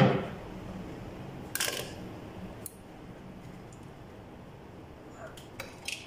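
Sharp plastic clicks and light rattles of hands working the wire connector on a front-load washing machine's heating element terminals: one loud click right at the start, two more about 1.5 and 2.5 seconds in, and a few small clicks near the end.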